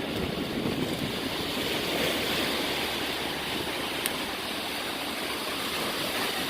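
Ocean surf washing onto the beach, a steady rush of breaking waves, with a faint click about four seconds in.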